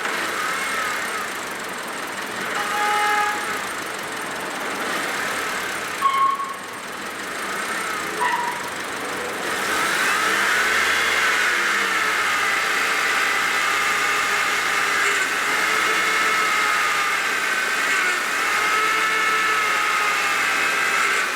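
A 2010 Honda Civic's engine running, with a whine whose pitch slowly rises and falls; the whine gets louder and steadier about ten seconds in. Two short, brief tones sound around the middle.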